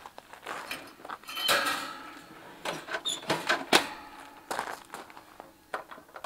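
Scattered metal clinks, knocks and rustles from a Paseco CAMP 25S kerosene heater being handled at its base, with a cluster of sharp clicks about three seconds in.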